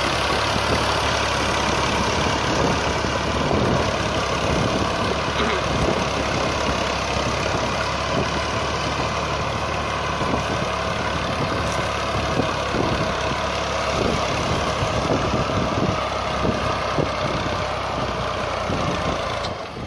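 Fiat 480 tractor's three-cylinder diesel engine running steadily under load while pulling a plough through dry soil. The sound breaks off abruptly near the end.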